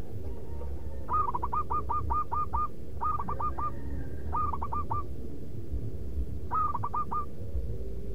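Zebra dove (perkutut) cooing: four quick runs of short, evenly spaced notes, about five to seven to a run, the first run the longest.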